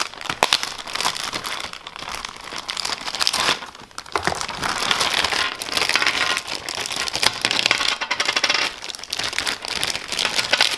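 Plastic packaging crinkling and rustling as toys are unwrapped by hand, with many scattered sharp clicks.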